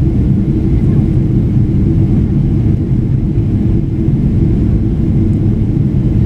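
Steady low rumble of jet engines and rushing air heard inside the cabin of a Boeing airliner climbing after takeoff.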